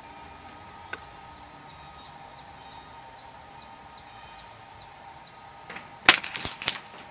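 A single shot from an Uragan PCP air rifle about six seconds in: one sharp report followed by a quick rattle of a few more sharp strokes. Before it there is only faint repeated high chirping in the background.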